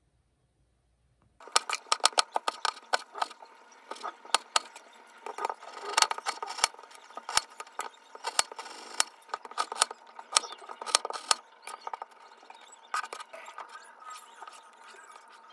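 A quick, irregular run of sharp clicks and taps from small hard objects being handled, starting about a second and a half in.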